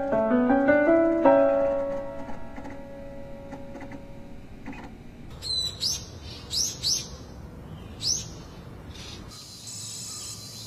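Birds chirping: five short, quick rising calls in the middle, as the closing notes of background music fade out at the start. A faint, steady, high-pitched drone comes in near the end.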